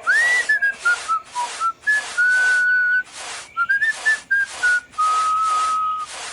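A whistled tune: a quick upward swoop at the start, then a run of short notes and two longer held notes, each with a breathy hiss.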